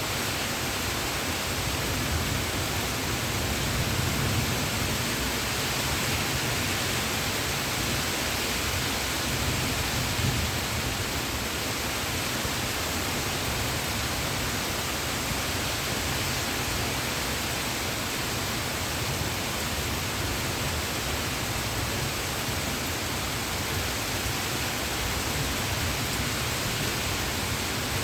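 Heavy rain falling steadily, a dense, even hiss with no distinct drops or thunder claps.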